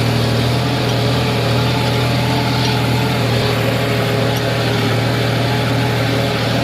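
Diesel engine running steadily at a constant speed, a low, even hum that does not change in pitch.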